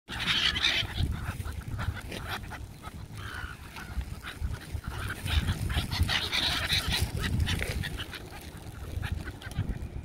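A flock of gulls calling over and over in short harsh cries, loudest near the start and again around the middle, with a steady low rumble underneath.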